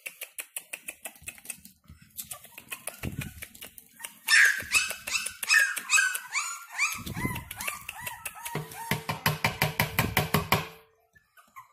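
Young Frenchton (Boston terrier x French bulldog) puppies yelping and whining in high, falling cries, loudest from about four seconds in, over a rapid patter of small clicks. The cries stop shortly before the end.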